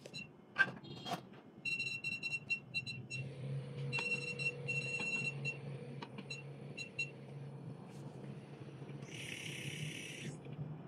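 Touchscreen control panel of a 4-in-1 cavitation slimming machine beeping at each button press, in single short high beeps and quick runs of them, as the handles' working energy is adjusted. Underneath is a steady low hum, with a steady mid tone joining after about three seconds; a hiss lasting about a second comes near the end.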